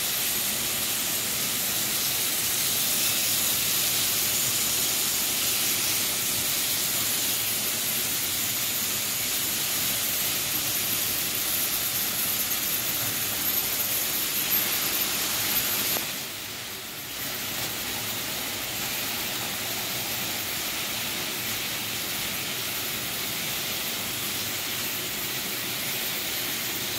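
Several Märklin HO model trains running on metal track: a steady rushing whir of motors and wheels that dips briefly about sixteen seconds in.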